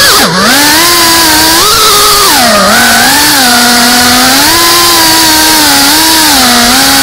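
FPV racing quadcopter's electric motors and propellers whining, the pitch dipping sharply just after the start and then rising and falling with the throttle, heard from the drone itself with a steady hiss of air.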